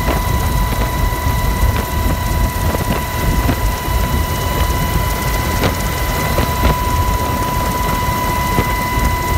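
Helicopter in flight heard from the cabin: a steady low rumble of rotor and engine with wind noise, and a constant high-pitched whine throughout. A few faint clicks.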